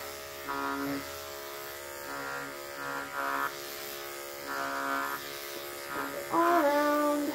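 Corded electric grooming clipper running with a steady electric buzz as its blade is dragged through long-pile faux fur. It grows louder and harsher in several short stretches while the blade cuts, and its pitch wavers briefly in the loudest stretch near the end.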